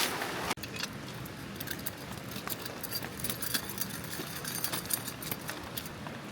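Steady rain hiss with many small, irregular ticks and light clinks. A sudden cut about half a second in drops a louder rushing water sound.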